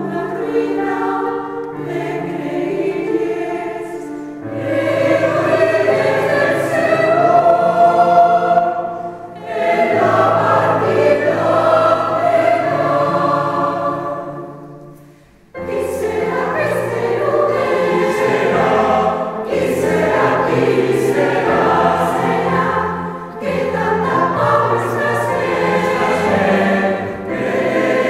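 Mixed choir of women's and men's voices singing a Christmas carol in Valencian. The singing breaks off briefly about halfway through and comes back in with a new phrase.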